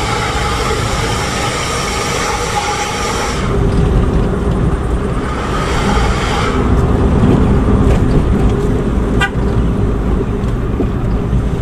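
A vehicle horn sounding in a long blast of about three and a half seconds, then a shorter blast of about a second a couple of seconds later, over the steady low rumble of a car engine and road noise.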